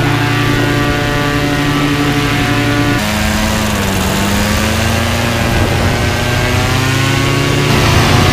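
Paramotor trike's engine and caged propeller running on the ground. The sound changes abruptly about three seconds in, then its pitch dips and climbs steadily as the throttle opens.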